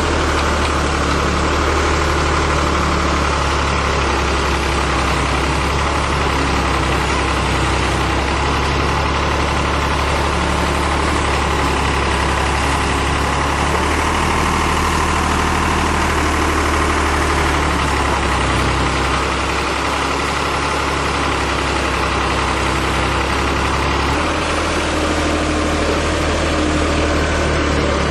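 Diesel engine of a tractor-mounted backhoe loader running steadily, its low note shifting slightly a few times.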